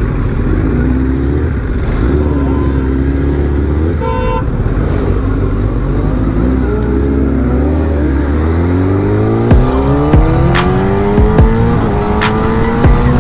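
Litre-class superbike engine running at low revs as it rolls off, then accelerating with a steadily rising pitch from about eight seconds in. A short beep about four seconds in, and a series of sharp pops near the end.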